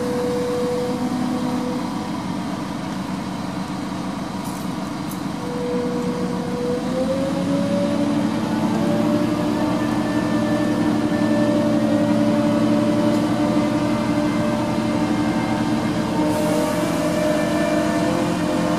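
Liebherr LTM1350-6.1 mobile crane's diesel engine running under hydraulic load while the crane holds and moves a suspended staircase section. About seven seconds in, the revs rise and then hold steady at the higher pitch.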